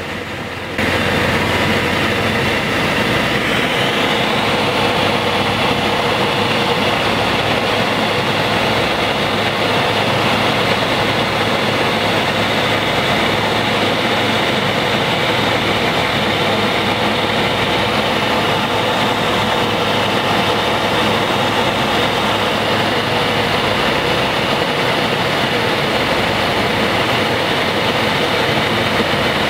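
Single-engine light aircraft's engine and propeller running steadily on final approach, heard inside the cockpit. The level rises abruptly about a second in, then holds steady.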